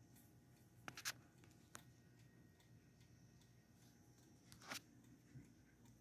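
Near silence with a few short scratchy clicks about a second in and a longer scrape near five seconds in: handling noise from a phone moved close against a wooden clock case.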